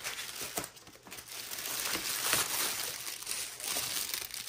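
Packaging being crinkled and handled while the desk phone's stand is unpacked: a steady run of crinkling with many small crackles.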